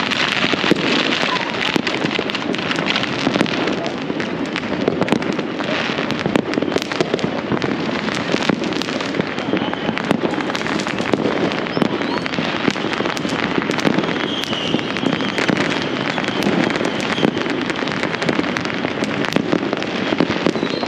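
Many fireworks and firecrackers going off at once across a city, a dense unbroken crackle of pops and bangs.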